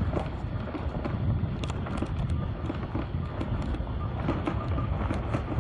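Motorbike riding along a rough gravel track: a steady rumble and wind noise on the microphone, with small stones clicking and crunching under the tyres.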